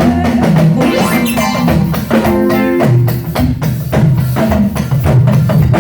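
Live church praise band playing without singing: drums and hand percussion keep a steady beat under held instrumental chords.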